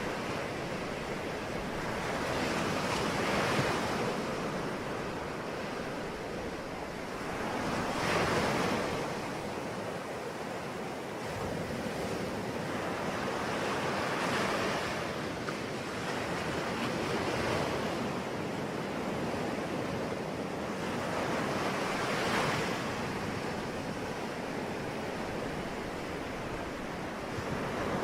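Ocean waves breaking and washing on a shore, a steady rushing surf that swells with each wave every few seconds.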